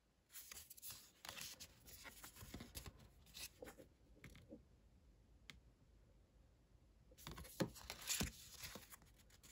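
Faint rustling and sliding of oracle cards being handled, card stock scraping against card as cards are shifted through the deck, in two short spells with a single click between them.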